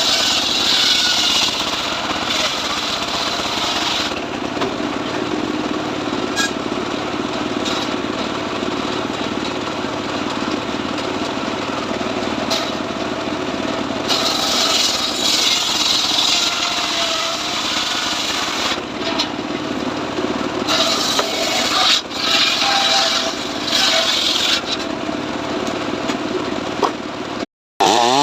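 Stihl MS 382 two-stroke chainsaw cutting lengthwise through a sengon log: a steady rasp of the chain in the wood under the engine's note, swelling and easing several times in the second half. The sound cuts out briefly near the end.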